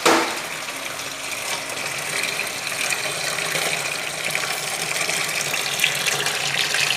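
Melted beeswax gushing from the 3/4-inch valve of a steam wax melter and splashing into a plastic tub, steadily and slowly growing louder, with the accumulated steam escaping along with the wax. A short loud burst right at the start.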